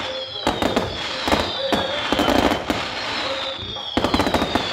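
Aerial fireworks finale, canister shells among them: rapid, overlapping bangs and crackling from shell breaks, with several falling whistles recurring throughout.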